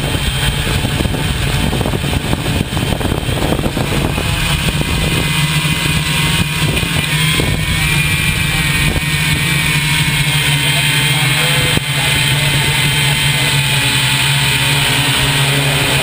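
Loud, steady vehicle engine noise with a continuous low hum and a faint high whine, the level rising slightly about four seconds in.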